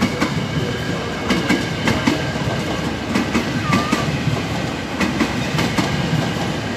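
KRL Commuter Line electric multiple-unit train passing close by, a steady rumble with its wheels clattering over the rail joints in a run of sharp clicks.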